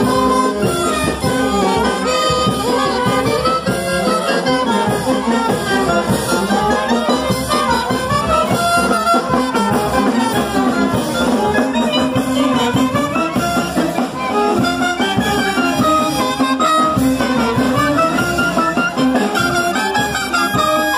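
Brass band playing majeño dance music, a continuous tune with several instruments playing together.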